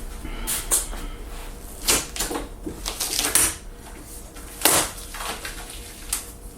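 Irregular clatter of hard objects being handled and set down: scattered clicks and knocks, a handful of sharp ones spread through a few seconds, over a faint steady hum.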